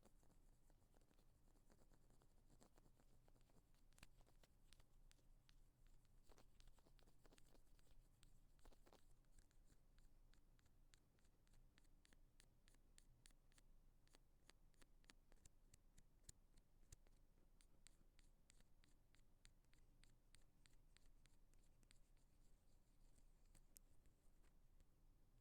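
Faint ear-cleaning ASMR sounds: an ear pick scratching and tapping at an earphone-style microphone, a run of soft quick clicks and scrapes that grows denser partway through.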